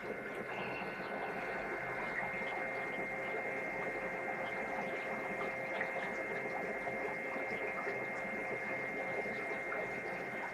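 Aquarium air-driven sponge filters running, a steady hum with a few constant tones over a bed of bubbling noise.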